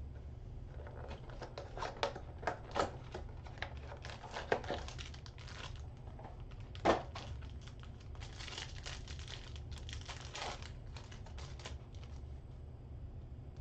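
Trading-card pack wrapper and cards of a 2022 Select football mega box being handled: a run of crinkles, small clicks and card slides, with one sharper snap about seven seconds in and a thicker stretch of crinkling a little after. A steady low hum lies underneath.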